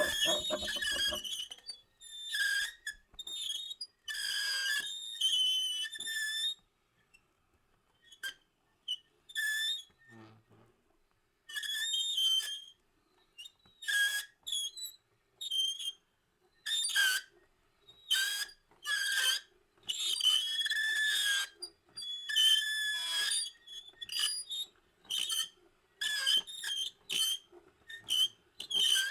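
A string of shrill squeals in short bursts, each about a second or less, broken by silent gaps and coming faster toward the end, over a faint steady hum.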